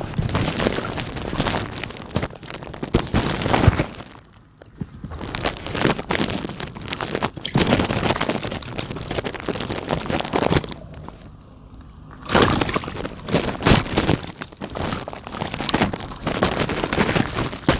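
Balloons popping one after another in quick succession, a dense run of sharp cracks and crackles, easing off briefly about four seconds in and again around eleven seconds in.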